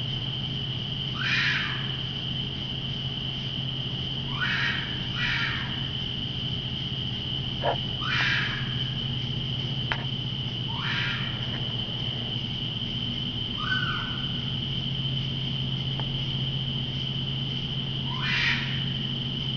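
An unidentified night animal gives a short, harsh call that drops in pitch, about seven times at uneven gaps of one to five seconds. Under it runs a steady high drone of night insects and a low steady hum.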